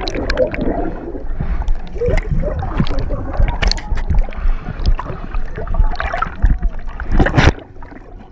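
Pool water splashing and gurgling around a camera that is dipping in and out of the water beside a cardboard boat, with many sharp knocks and splashes. The sound drops off suddenly near the end.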